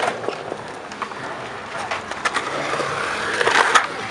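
Skateboard wheels rolling on a concrete skatepark bowl, with scattered clacks of boards, louder as a skater rides past close by near the end. Background chatter from onlookers.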